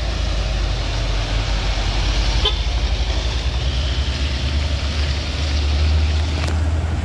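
Heavy vehicle engine running under load, a steady low rumble, with a short sharp sound about two and a half seconds in.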